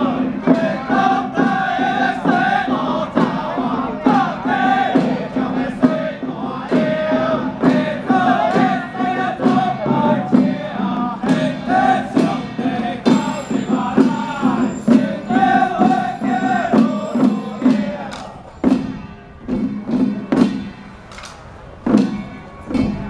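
A troupe of men chanting ritual verses in unison over steady strikes on hand drums. About eighteen seconds in the chanting stops and only scattered drum beats go on.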